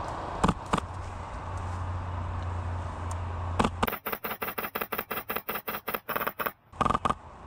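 Airsoft rifle firing: a few single shots, then a rapid string of about seven shots a second for roughly two and a half seconds, and two more shots near the end.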